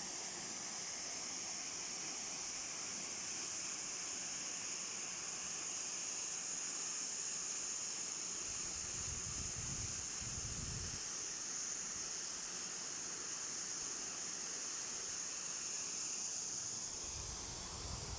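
Steady hiss of Manai Falls, water falling into the gorge, with brief low wind rumbles on the microphone about halfway through and near the end.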